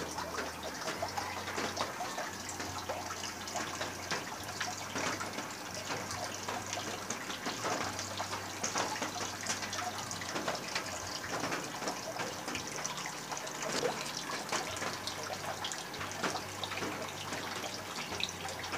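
Aquarium water bubbling and splashing steadily, with many small irregular pops and splashes, over a low hum that drops out now and then.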